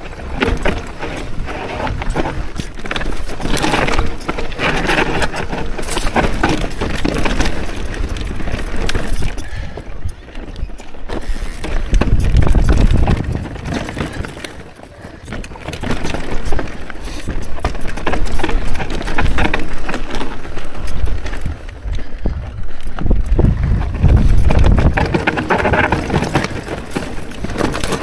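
Mountain bike ridden over rough rocky trail: tyres, chain and frame rattling and knocking irregularly on rock, with wind rumbling on the action camera's microphone twice, about twelve seconds in and near the end.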